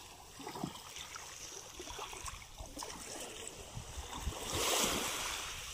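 Small waves lapping and splashing in shallow water at the shore, with a louder wash of surf swelling and fading about four and a half seconds in.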